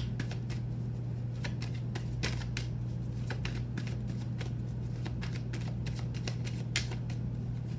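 A thick deck of tarot cards being shuffled by hand: a run of quick, irregular clicks, with one sharper snap near the end. A steady low hum runs underneath.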